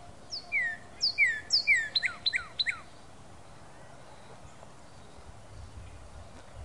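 Northern cardinal singing one song phrase about two and a half seconds long: a few clear whistled notes that slur downward in pitch, then a quicker run of about five sharper falling notes.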